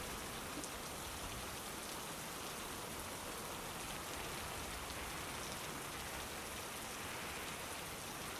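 Steady rain falling, a low, even hiss that does not change.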